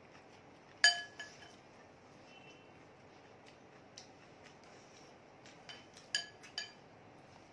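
Metal spoon clinking against a glass bowl, each strike ringing briefly: a sharp clink about a second in, a smaller one just after, a light tap midway, and a quick run of two or three clinks about six seconds in.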